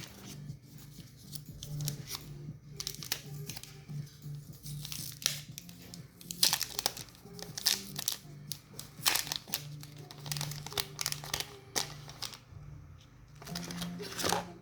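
Tablet packaging being handled: repeated crinkling and tearing with sharp clicks and rustles, busiest in the middle and again near the end, over steady background music.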